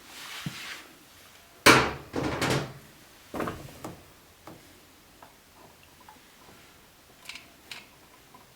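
Hand-tool knocks, scrapes and clicks as a painted-over electrical outlet is worked loose from its wall box. A sharp knock comes about two seconds in, followed by scraping and another knock, then a few small clicks.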